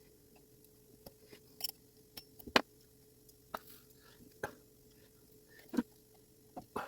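Irregular small clicks and taps of clock-movement parts and tools being handled while a mantel clock movement is reassembled, with one sharper tap about two and a half seconds in. A faint steady hum lies underneath.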